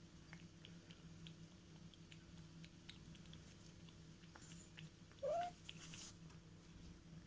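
Cat lapping milk from a plastic bowl: faint, quick, irregular wet ticks of its tongue over a low steady hum. About five seconds in there is one brief, louder pitched squeak that slides up and back down.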